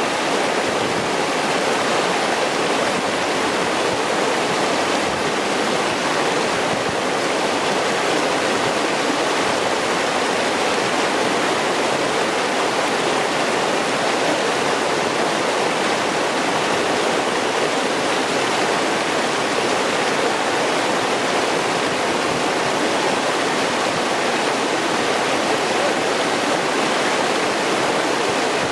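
Clear mountain stream rushing and burbling over mossy rocks, a steady, even rush of water.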